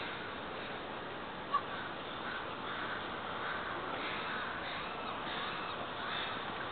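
Crows cawing, a run of repeated caws over a steady background hiss, with one brief sharp blip about a second and a half in.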